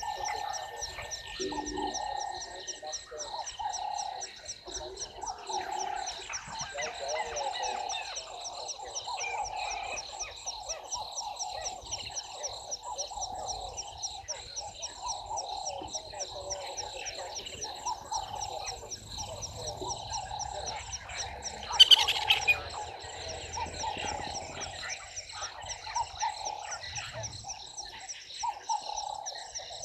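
A chorus of frogs croaking, a call about once a second, over a fast, even, high-pitched ticking trill. About two-thirds of the way through, one brief, sharp, louder sound stands out above them.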